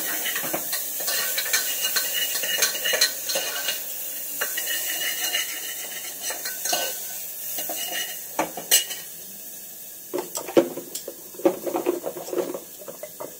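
A metal spoon stirring and scraping chopped beans and carrots frying in butter in an open pressure cooker, the food sizzling, with sharp clinks and knocks of metal on the pot. It gets quieter about two-thirds of the way through.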